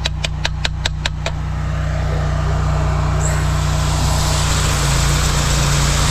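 High-pressure drain jetter's engine and pump running steadily, with a quick run of clicks in the first second as the new nozzle is fitted to the hose. Then the nozzle is fired: the water jet hisses, building up and getting brighter about three seconds in.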